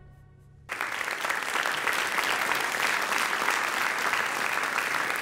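Audience applause that starts suddenly about a second in, after the last faint tail of the film's music, and then carries on steadily as many people clap.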